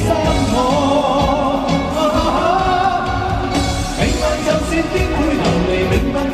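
Male Cantopop singer singing live into a handheld microphone over full band accompaniment, holding one long, wavering note in the first half.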